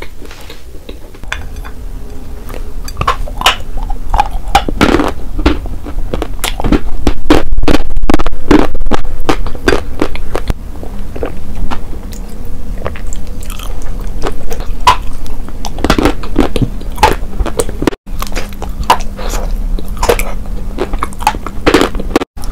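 Close-miked biting and crunching of chalk bars, mixed with wet chewing of the chalky paste, in a rapid run of sharp crunches several times a second.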